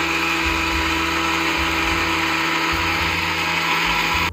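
Electric mixer grinder (steel jar, plastic lid) running at full speed, grinding dry ingredients into fine powder: a loud, steady whirr that cuts off suddenly near the end.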